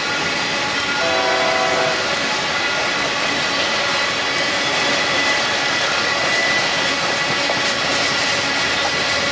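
Loaded coal train's cars rolling past: a steady noise of steel wheels on the rails, with a brief pitched tone like a horn about a second in.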